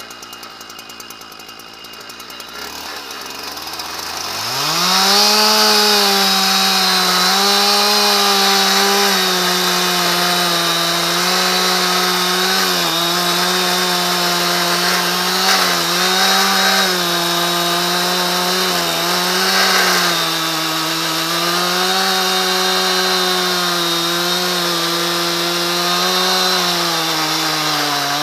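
Husqvarna 372 XPG two-stroke chainsaw on a chainsaw mill idling, then revving up to full throttle about four seconds in and holding there, ripping lengthwise through a dry, hard ash log. Its pitch sags slightly here and there under the cutting load.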